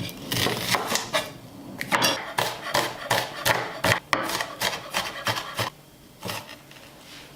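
Kitchen knife cutting an onion on a cutting board: a quick, irregular run of strokes, several a second, dying down near the end.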